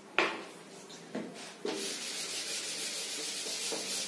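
A board duster wiping chalk off a chalkboard: a steady scratchy rubbing hiss that starts about one and a half seconds in, after two short knocks.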